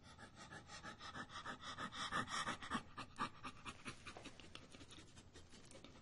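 Dog panting in quick, even breaths, loudest in the middle and tapering off toward the end.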